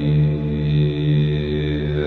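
Background music: a low, steady chant-like drone that gently swells and fades.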